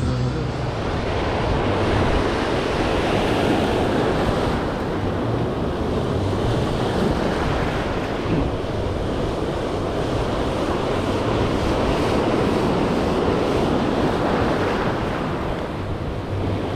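Ocean surf breaking and washing over a rocky shoreline, swelling and easing, with wind buffeting the microphone.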